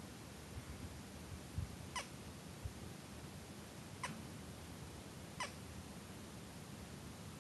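Three short, high, quickly falling chirps from a small animal, one to two seconds apart, over a faint low rumble.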